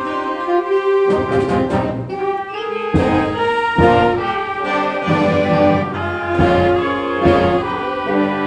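Concert band playing, with sustained brass and wind chords and a few sharp percussive accents.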